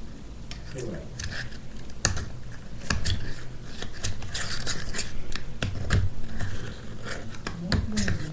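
Plastic spoon stirring and scraping sticky slime in a small plastic cup: an irregular string of clicks, taps and scrapes.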